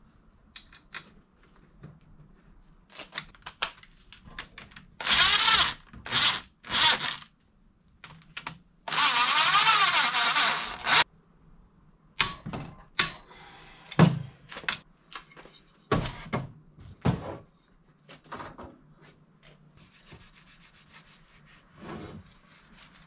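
Hand work on a Toyota differential carrier on a steel workbench. There are three short hissing bursts, then a longer one of about two seconds, followed by a run of sharp metal knocks and a few dull thunks as the wrench and cover go on.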